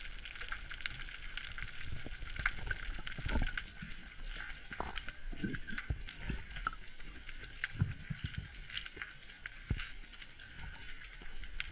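Underwater ambience: a steady crackle of many scattered small clicks, with irregular low knocks and thumps now and then.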